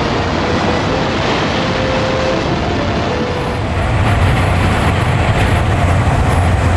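Gullfoss waterfall roaring: a loud, steady rushing noise whose low rumble grows stronger about four seconds in.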